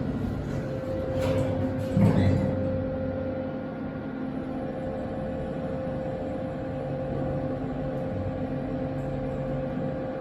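Elevator car riding between floors with its cab ventilation fan running, a steady hum, and a single low thump about two seconds in.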